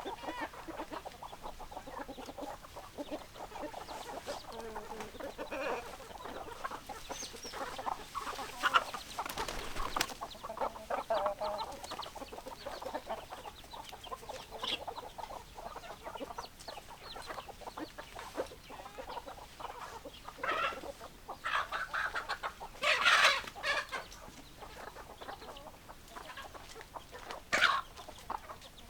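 A flock of domestic chickens clucking and calling continuously, many birds overlapping, with a few louder squawks.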